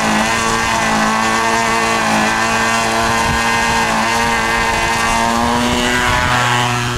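Control-line stunt model airplane's engine running flat out with a steady high buzz while held for launch, then released; near the end it starts to fade as the model rolls away for takeoff.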